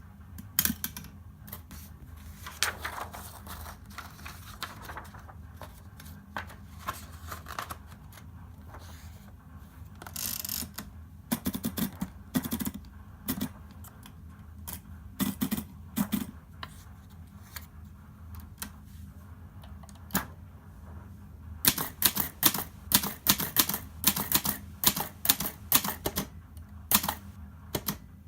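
Hermes Baby manual portable typewriter at work: scattered key strikes and mechanism clicks at first, then, about three quarters of the way in, a fast run of typing keystrokes at about four to five strikes a second. A steady low hum lies underneath.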